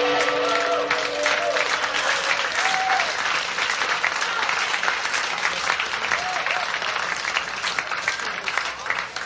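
Concert audience applauding with a few whoops as the last held note of the music dies away in the first couple of seconds. The applause gradually fades.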